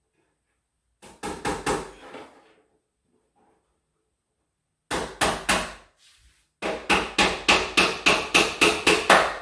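Hammer driving nails into a wooden closet organizer panel: three runs of rapid blows, the last and longest about four or five strikes a second.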